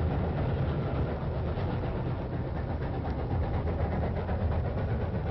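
A passenger train rolling past with a steady low rumble.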